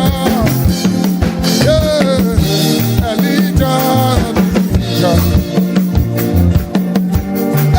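Upbeat African worship band music, with a drum kit keeping a steady beat under a bass line and bending melodic lines from singing voices or lead instruments.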